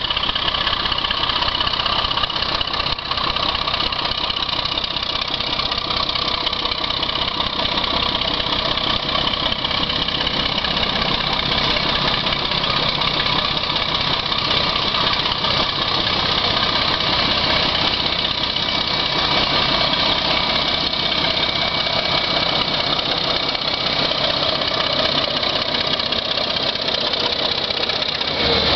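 Diesel engines of a pair of DE class diesel-electric locomotives running as they haul a freight train, a steady drone with a whining tone. Near the end the lead locomotive passes close, the sound gets a little louder and one tone falls in pitch.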